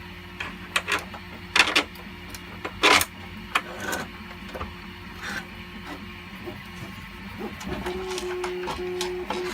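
Sharp clicks and knocks of hard plastic parts and screws being handled, the loudest about 3 seconds in. Under them a steady machine hum runs throughout, and near the end a stepping, pulsing tone joins it, like a 3D printer's motors at work.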